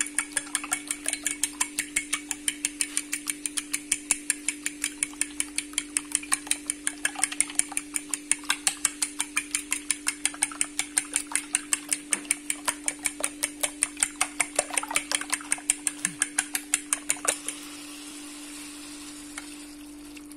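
Fork beating eggs in a bowl, clicking against the bowl in a fast, even rhythm of about four or five strokes a second, stopping abruptly about 17 seconds in.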